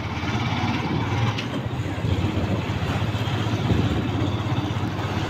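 Motorcycle engine running steadily as the bike is ridden, heard from on the bike itself.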